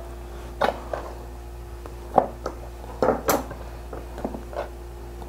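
A handful of light, scattered knocks and clinks as pieces of cooked daikon are handled on a wooden cutting board and set into a stainless steel bowl, over a faint steady hum.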